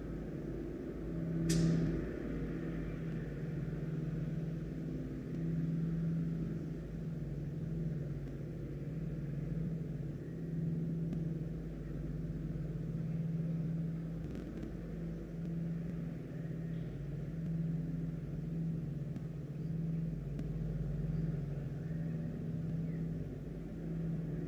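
Steady low mechanical hum and rumble that swells and fades a little. A single short sharp noise comes about one and a half seconds in.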